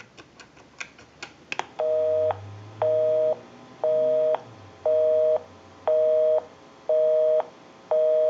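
Quick clicks from the Western Electric 2500 touch-tone keypad as the last digits are keyed, then, about two seconds in, a busy signal from the off-hook handset: a two-tone beep half a second on, half a second off, about once a second. The called line is busy.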